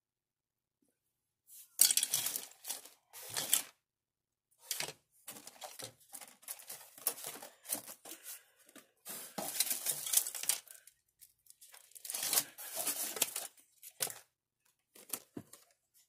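A thin clear plastic parts bag crinkling and plastic model-kit parts trees rattling as hands rummage through a kit box, in irregular bursts starting about a second and a half in.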